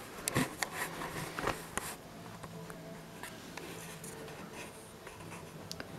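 Faint clicks and rustling of objects being handled, most of them in the first two seconds, over a low steady hum.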